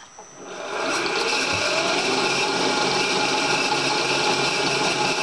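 Milling machine spindle coming up to speed about half a second in, then running steadily as a 3/8-inch end mill cuts a wrench flat about 40 thousandths deep into the mandrel.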